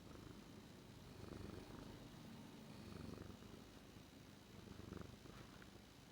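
Domestic cat purring quietly, close-miked by a lavalier microphone, the purr swelling with each breath about every one and a half to two seconds.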